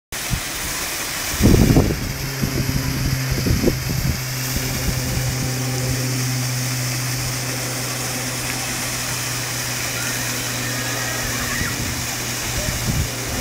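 Steady low electric hum of a swinging pirate-ship ride's drive machinery as the ship swings. There are low buffeting thumps about a second and a half in and again near four seconds.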